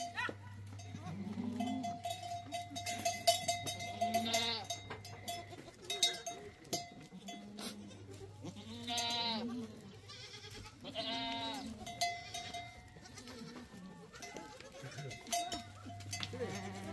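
Goats bleating about three times, with livestock bells clinking and ringing.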